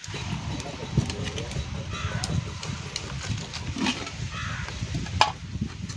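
Open fire of dry leaves and sticks crackling with scattered pops, under a steady low rumble of wind on the microphone. Birds chirp now and then, and there is one sharper click about five seconds in.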